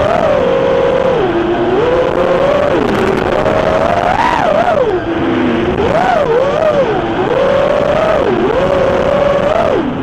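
A 210-size FPV racing quadcopter's brushless motors and propellers whining, the pitch rising and falling constantly as the throttle is worked through turns and climbs, over a steady hiss.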